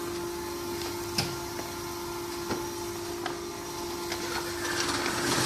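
Steady hum of a powder mixing and auger-filling machine line running, with one constant tone through it and a few sharp clicks spaced about a second apart. The noise grows louder near the end.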